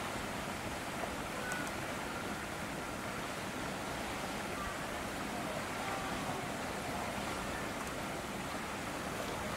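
Steady rushing outdoor ambience, with a few faint, short whistle-like glides.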